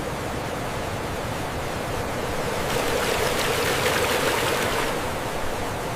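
A steady rushing noise with no distinct events, growing a little louder midway.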